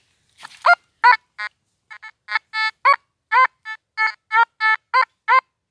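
Metal detector sounding its target signal: a rapid run of short electronic beeps, about three a second, some with a quick rise and fall in pitch and some flat, as the coil passes over a buried metal object.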